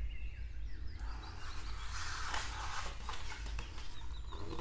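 A picture-book page being turned: a papery rustle starting about a second in and lasting a couple of seconds. Faint high chirping and a low steady hum run underneath.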